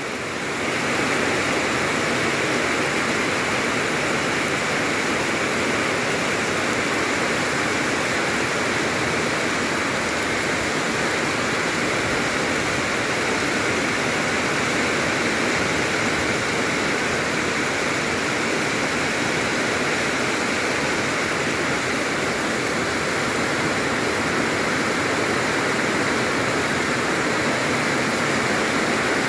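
Heavy rain pouring down in a steady, even downpour.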